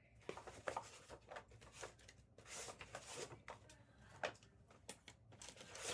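Trading cards being handled and flipped through, a scatter of soft clicks and brushing swishes at irregular spacing.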